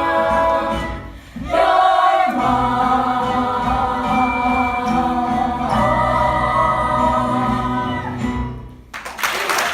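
Stage cast singing together in long held chords, a short break about a second in, then a final sustained chord that cuts off near the end as audience applause breaks out.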